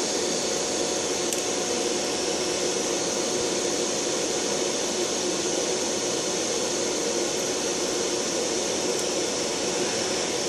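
Large fan running steadily: a constant rush of air with a faint steady hum. One faint click comes about a second in.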